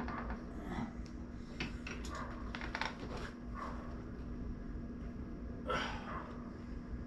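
A person breathing hard with short grunts of effort while straining through weighted hanging leg raises, the loudest about three-quarters of the way in. Scattered small clicks and a steady low hum run underneath.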